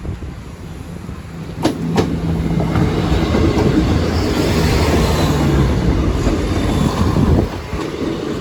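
Diesel passenger train passing over a level crossing: a steady engine hum and wheel rumble build about a second in and stay loud until near the end. Two sharp wheel clicks come about a second and a half in.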